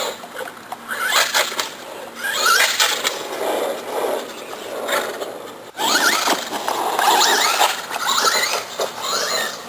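Traxxas Rustler VXL's brushless electric motor whining, its pitch rising and falling again and again as the RC truck is throttled up and down.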